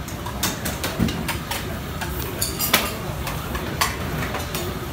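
Kitchen clatter of metal utensils, pots and bowls: repeated sharp clinks and knocks, several louder than the rest, over a steady low hum.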